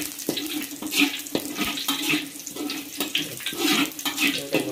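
Chopped garlic chives sizzling in hot oil as they are stir-fried, with a spatula scraping and knocking against the pan again and again.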